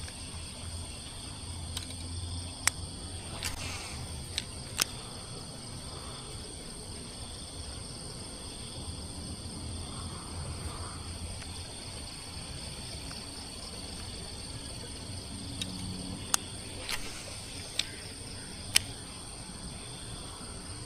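Steady chorus of insects buzzing at a high pitch, with a few sharp clicks scattered through it.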